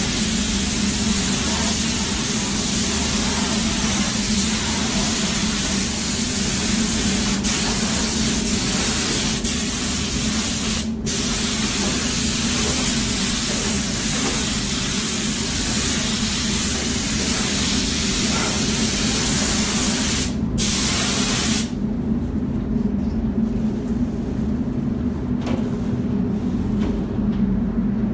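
Compressed-air paint spray gun hissing steadily as it sprays paint. The trigger is let go briefly twice, about 11 and 20 seconds in, and the spraying stops about 22 seconds in. A steady low hum runs underneath throughout.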